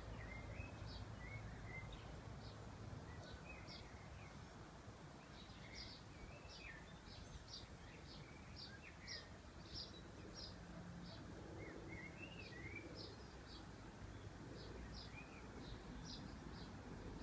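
Faint outdoor background with small birds calling: a run of short, high chirps repeating throughout, with a few lower sliding calls mixed in.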